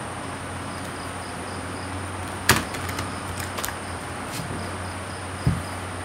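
Deck of tarot cards being handled and shuffled: one sharp snap of the cards about two and a half seconds in, a few lighter clicks after it, then a soft thump near the end as the deck is set down on the cloth. Steady background hiss throughout.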